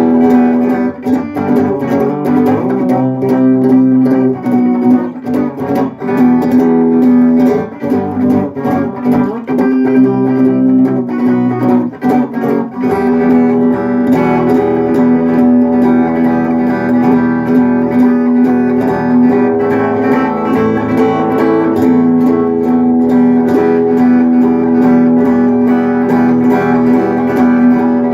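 Guitar playing chords. Choppy and rhythmic at first, the playing becomes fuller and more even about halfway through.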